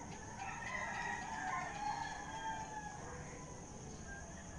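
Rooster crowing: one long, wavering crow starting about half a second in and lasting roughly two and a half seconds.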